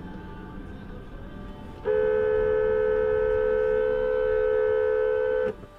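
Car horn held in one long steady blast of about three and a half seconds, two close tones sounding together, starting about two seconds in and cutting off abruptly.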